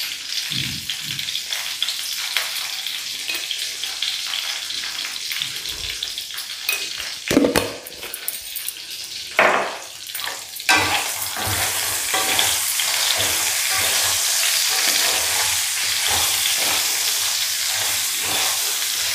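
Whole small brinjals sizzling in hot oil in a kadai, stirred with a wooden spatula. A few short knocks come around the middle, and from about eleven seconds in the sizzle is louder and steadier.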